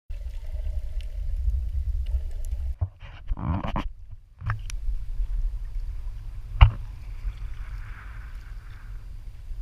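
Wind rumbling on the microphone aboard an inflatable kayak, with paddle strokes splashing in the water about a third of the way in and a single sharp knock about two-thirds through.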